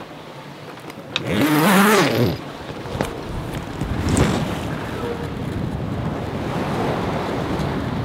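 Wind and sea rushing past a sailing yacht under way, with wind buffeting the microphone. About a second in comes a loud whooshing surge that rises and then falls in pitch, and a smaller one near the middle.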